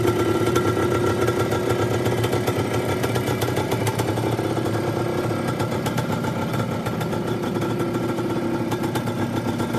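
Yamaha DT's two-stroke single-cylinder motorcycle engine idling steadily.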